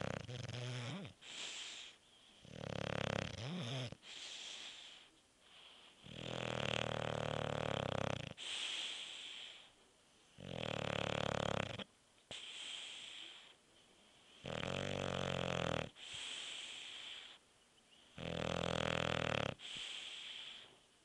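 Sleeping bulldog snoring: a long, loud snore about every four seconds, with quieter breaths between.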